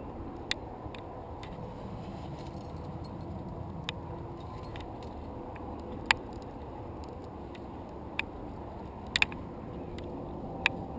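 Sharp, scattered clinks of climbing hardware on a climber's harness as he moves up a granite crack, about half a dozen over the span, one a quick double, over a steady hiss of wind on the microphone.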